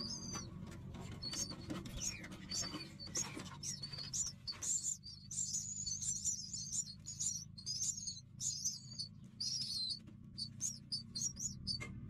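Nestlings begging for food with a stream of thin, high-pitched cheeps. The cheeps run densest through the middle and turn into quick, short calls near the end, over a low steady hum.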